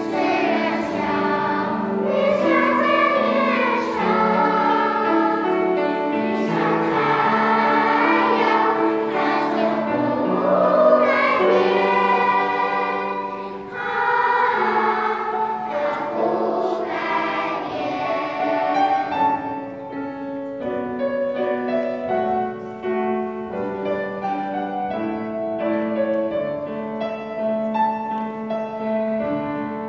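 Children's choir singing together, a hymn-like song. About two-thirds of the way through, the sound becomes quieter and thinner.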